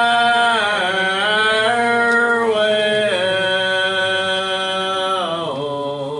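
Slow gospel singing in long held notes that step up and down in pitch, a cappella.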